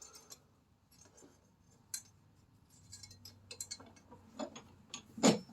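Light clicks and metallic taps as a copper strip and hand tools are handled while bending it, with one louder knock near the end.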